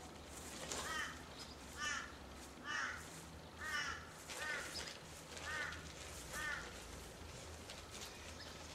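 A bird calling outdoors: seven short calls, roughly one a second, over a low steady background hum.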